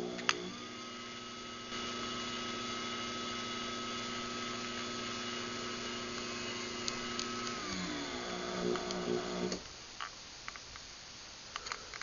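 Craftsman 53918D garage door opener starting up with a click and its motor running steadily through an opening cycle. Near the end it slows with a falling pitch and stops.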